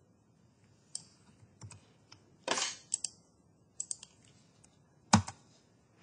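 Scattered clicks and key presses on a computer keyboard and mouse, about half a dozen short separate taps, the loudest about five seconds in.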